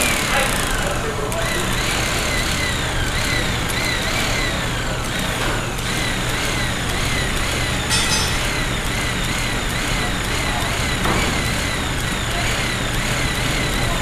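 Shop press compressing an ATV shock's coil spring: a steady machine hum with a repeating chirping squeal about twice a second, and a single sharp click about halfway through.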